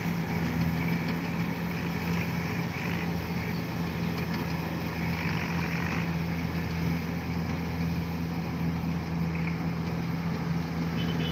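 Steady engine drone of a rice combine harvester cutting a paddy field, with a constant low hum.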